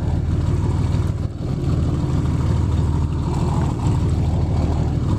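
Boat engine running steadily with a low hum, heard from on board.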